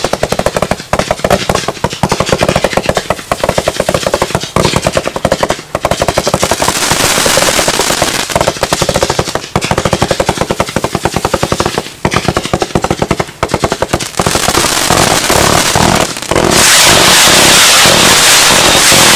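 Lesli Royal-Z firework cake firing, a rapid run of launch pops from its tubes with a few short breaks between volleys. About three-quarters of the way through it turns into a louder, dense crackle as the shots burst into crackling stars.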